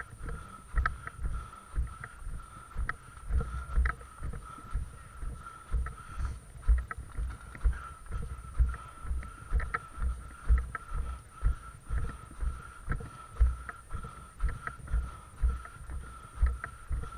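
Footsteps of someone walking at a steady pace, dull low thuds about twice a second, with a faint steady high whine underneath.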